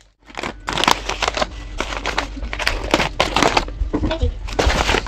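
Brown kraft packing paper crinkling and rustling in irregular crackles as it is handled and lifted out of a cardboard shipping box.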